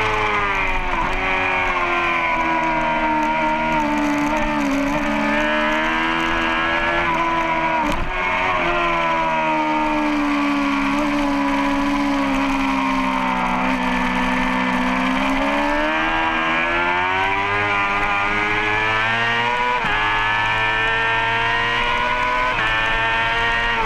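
Racing motorcycle's engine at high revs, heard from a camera on the bike: the pitch slides down over several seconds and climbs again as the bike runs through the corners, with quick breaks in the pitch about eight and twenty seconds in as gears change.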